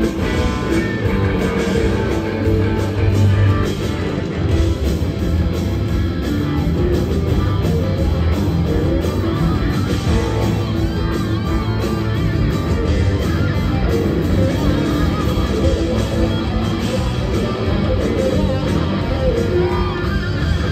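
Live rock band playing a driving rock-and-roll number: a lead electric guitar played on a Les Paul-style guitar, over electric bass, drums and keyboards.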